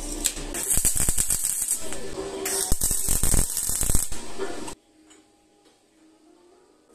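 MIG welding arc crackling as it lays weld on stainless steel pipe with solid 308 stainless wire: two bursts of welding, each a second or two long. The sound cuts off abruptly just under five seconds in, leaving near silence.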